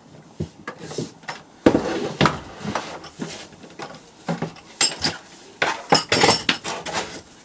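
Irregular clicks, knocks and clatter of hard plastic as a DeWalt TSTAK tool box and the tools packed in it are handled, with a brief scrape about two seconds in and a busier run of knocks around five to six seconds in.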